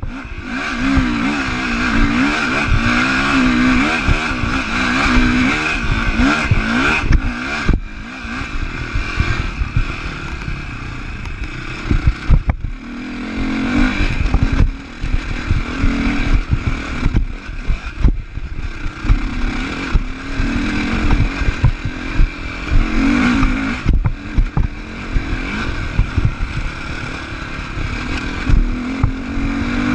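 2015 Sherco 450 SEF-R's single-cylinder four-stroke engine revving up and down under changing throttle as the bike is ridden over rough trail, easing off briefly around 8 and 12 seconds in. Frequent knocks and rattles from the bike over bumps.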